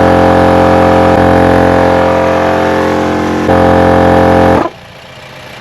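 Off-road air compressor running with a loud, steady hum while inflating four tires through a Morflate multi-hose kit. It cuts off abruptly about four and a half seconds in as the tires reach the 35 psi target.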